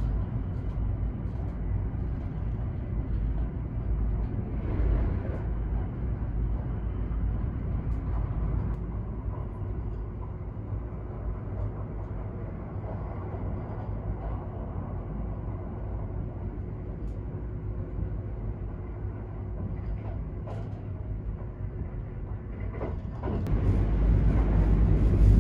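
Running noise of a Kintetsu 50000 series Shimakaze limited express, heard from inside the passenger car: a steady low rumble of wheels and motors on the track. Near the end it grows suddenly louder and fuller.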